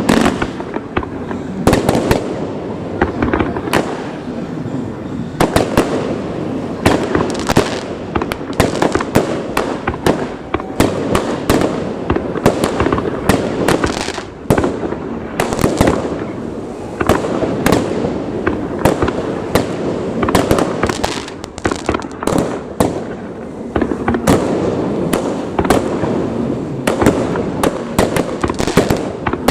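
A fireworks display going off continuously: a rapid, irregular barrage of bangs and crackling reports, with many shots overlapping one after another and no let-up.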